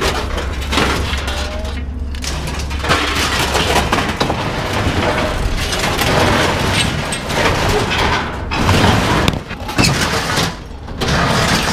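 Loud, continuous clattering and crashing of scrap being handled and dropped, with many sharp knocks.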